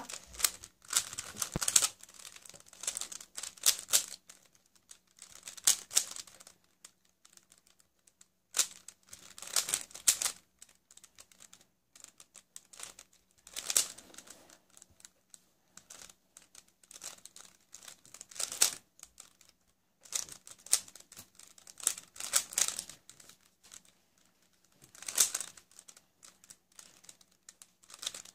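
Stickerless 3x3 speed cube being turned by hand during a timed beginner-method solve: quick clusters of plastic clicking and rattling as the layers turn, broken by short pauses between move sequences.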